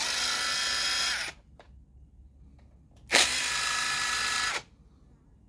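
A power drill spins twice in short runs of about one and a half seconds each, the second starting about three seconds in, as bolts are backed out of a chainsaw's cover.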